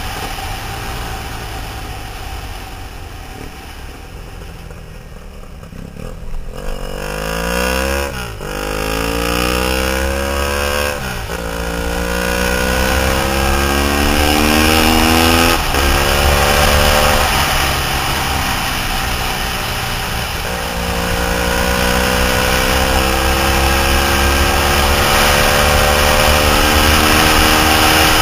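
Triumph Thruxton 900's air-cooled parallel twin, carbureted, through a D&D 2-into-1 exhaust, under way: fairly quiet for the first few seconds, then accelerating hard, the pitch climbing and dropping at each upshift about 8, 11 and 15 seconds in. It eases off briefly near 20 seconds, then pulls steadily again, with wind rushing over the microphone.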